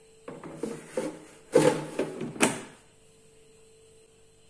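Plastic basket of an Instant Vortex Plus dual air fryer being pushed back into its drawer slot, with a few knocks and rattles as it slides in. It ends in a sharp click about two and a half seconds in as it seats.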